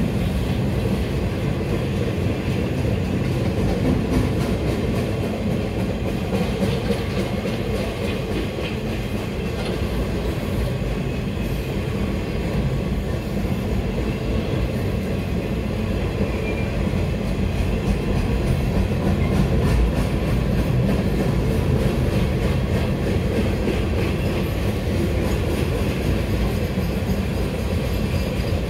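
Freight cars of a CSX maintenance-of-way train rolling steadily past, steel wheels running on the rails in a continuous, even rumble.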